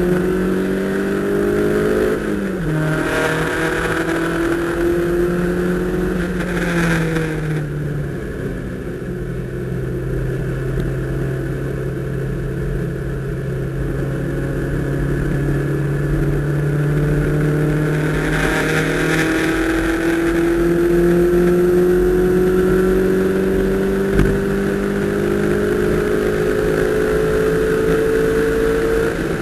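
Fourth-generation Toyota MR2's 1.8-litre four-cylinder engine heard from inside the cabin on track, its pitch dropping twice early on with brief rushes of hiss, holding almost level through the middle, then climbing steadily under acceleration for the last ten seconds or so.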